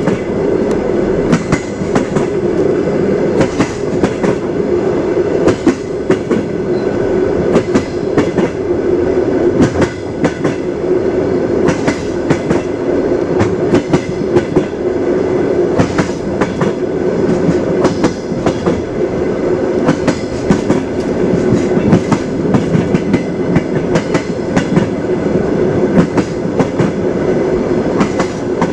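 Moving train: a steady rolling rumble with the wheels clacking over rail joints, many sharp clacks at uneven spacing.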